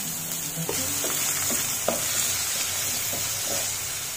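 Chopped onion, curry leaves and garlic sizzling steadily in hot oil in a metal kadai, with a wooden spatula stirring and scraping against the pan every so often.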